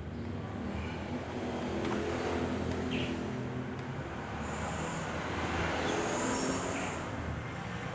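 Low rumble of passing motor traffic, swelling twice and easing near the end.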